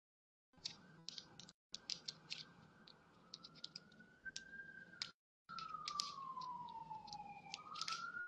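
Faint light clicking and crinkling of long fingernails handling a blunt wrap while rolling a blunt. Behind it a thin tone slowly rises, falls and rises again, like a distant siren, and the sound cuts out briefly a few times.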